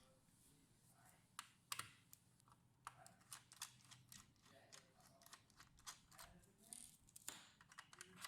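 Faint, irregular light clicks and taps, a few a second and busier in the second half, over a low hum.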